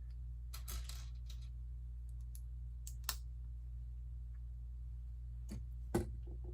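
Plastic Lego bricks being handled and snapped together: a few scattered sharp clicks, the loudest near the end, over a low steady hum.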